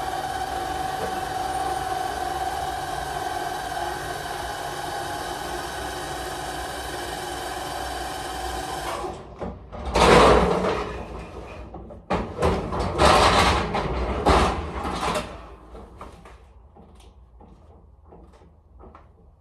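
A steady machine hum with a whine cuts off about nine seconds in. Then comes a loud, rough clattering and rumbling as a loaded pallet jack is rolled off the metal liftgate into a box truck, and after that a few faint knocks.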